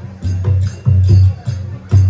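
Garo traditional dance music: low drum beats in a quick, repeating rhythm, each stroke topped with a jingling metallic clash.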